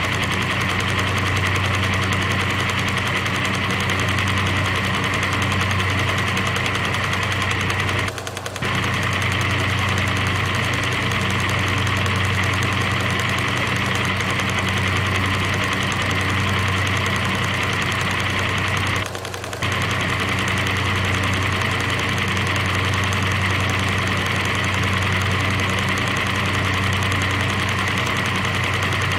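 Loud, steady machine-like drone: a low hum under a hissing band, dropping out for a split second twice, about eight and nineteen seconds in.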